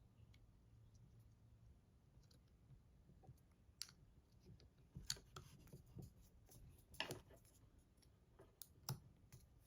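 Faint, scattered metal clicks of a Kizer Domin 2 folding knife being fitted back together: the handle, liner lock and blade are pressed until they pop into place.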